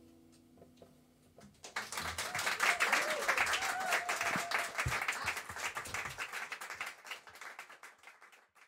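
The last sustained note of the band dies away, then a small audience breaks into applause a couple of seconds in, which swells and then fades out near the end.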